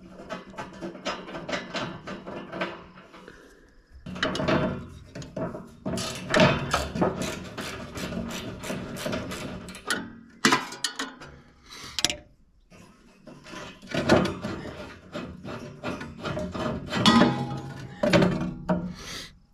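Hand ratchet clicking in repeated quick bursts with short pauses between, along with metal clinks, as bolts are loosened on a bulldozer engine.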